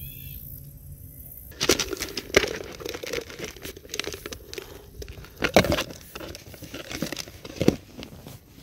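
Close handling noise of a plastic bait tub held of grasshoppers: irregular knocks, scrapes and crinkling, starting about one and a half seconds in, with several sharper knocks.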